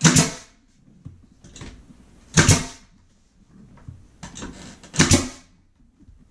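Pneumatic finish nailer firing three nails through wood trim into the wall, one loud shot about every two and a half seconds, each with a short rush of exhaust air. Fainter knocks come between the shots as the trim is handled.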